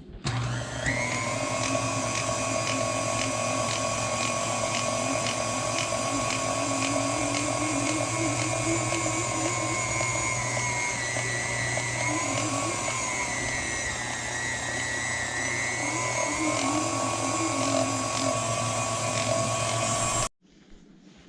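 Electric food shredder's motor running steadily while shredding cheese; its pitch sags for a few seconds in the middle as it takes load, then it cuts off suddenly near the end.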